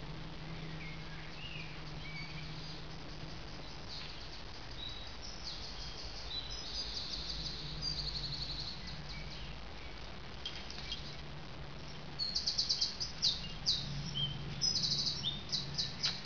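Wild songbirds singing: a series of high, rapid trilled phrases, several coming close together in the last few seconds, over a low steady hum.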